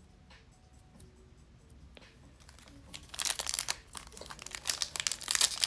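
A Topps baseball card pack's wrapper crinkles and tears as hands pull it open. It starts about three seconds in as a dense, loud crackle.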